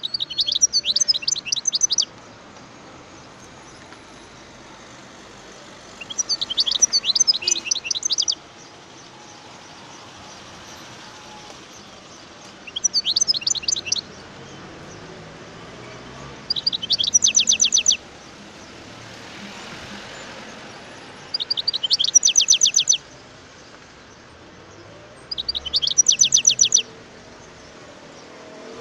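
European goldfinch singing: six short phrases of rapid, high, liquid twittering, each lasting a second and a half to two seconds, with pauses of a few seconds between them.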